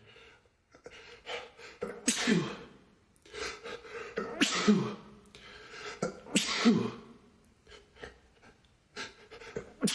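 A man sneezing hard three times, about two seconds apart, with short breaths building up before each; a fourth sneeze begins at the very end. It is an allergic sneezing fit set off by a cat allergy.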